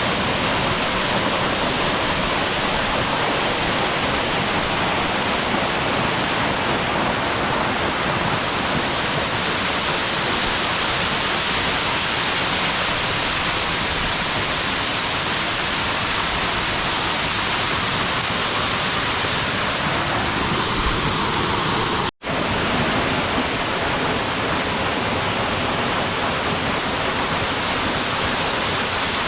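Waterfall pouring steadily, a dense even rush of falling water. There is a brief cut to silence about two-thirds of the way through.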